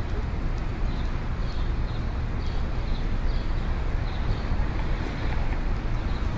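City street ambience: a steady rumble of traffic, with faint, irregular light taps in the background.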